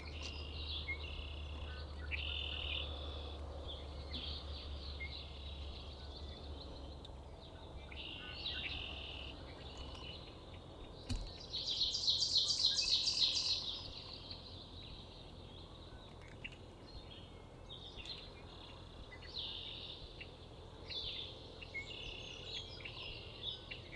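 Songbirds chirping and singing, with a loud, rapid trill of about a dozen evenly spaced notes around twelve seconds in.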